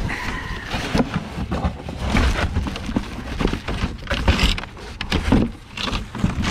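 Clear plastic bag crinkling and cardboard box rustling and scraping as a chainsaw in its bag is lifted out of the packaging: irregular crackles and rubs throughout, with several sharper knocks.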